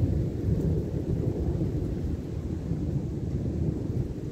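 A deep roll of thunder that peaks at once and then slowly dies away over a few seconds.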